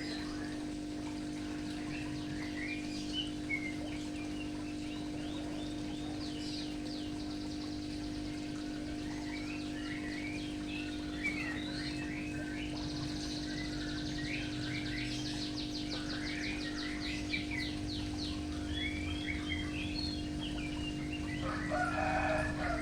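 Small birds chirping and trilling, with fast repeated trill notes in the middle, and a rooster crowing near the end. A steady low hum runs underneath.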